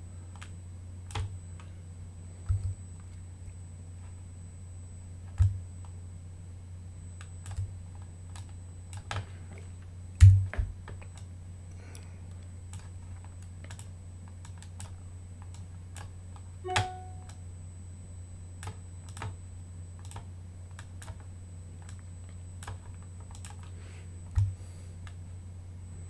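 Computer mouse and keyboard clicks: a dozen or so single clicks at irregular intervals over a steady low hum.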